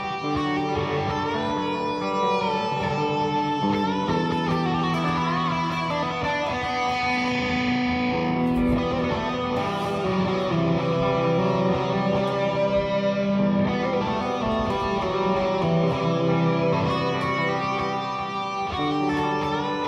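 Electric guitar music: an electric guitar played in long held notes, some of them bent in pitch.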